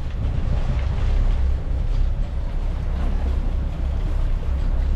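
Boat underway: a steady low rumble with an even wash of wind and water noise.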